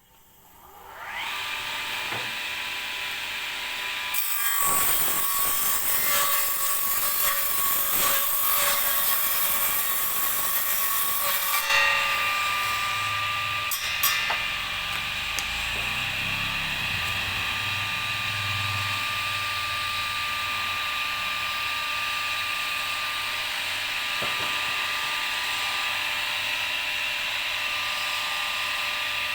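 Electric circular saw in a homemade table saw starting up with a rising whine, then running steadily. From about four seconds in to about twelve seconds it is louder and rougher as it cuts wood, then it runs free again.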